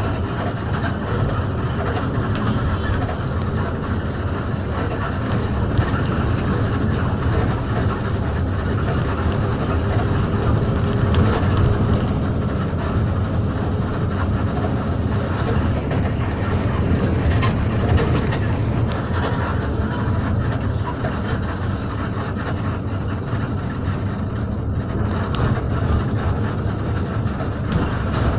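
Steady low engine and road rumble inside the cab of a moving intercity bus.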